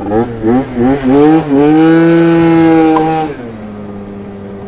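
Yamaha Aerox 70cc scooter's two-stroke engine revved in a few quick blips. It is then held at high revs for about two seconds before the throttle closes and it settles to a steady lower note.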